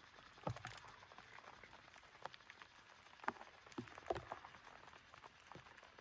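Scattered raindrops tapping irregularly on a surface over a faint steady rain hiss, with a few louder single drips about half a second, three seconds and four seconds in.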